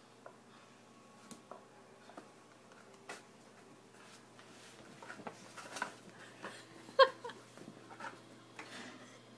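Small Havanese dog making a few short, soft pitched sounds, then one loud, sharp yip about seven seconds in, with light scattered clicks before it.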